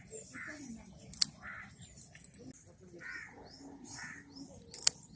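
Crows cawing repeatedly, with small birds chirping higher up. Two sharp snips of scissors cutting mint stems, about a second in and near the end.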